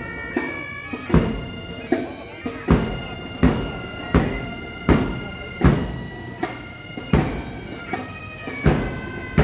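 Pipe band playing: bagpipes sounding a sustained tune over a bass drum struck at an even march pace, about four beats every three seconds.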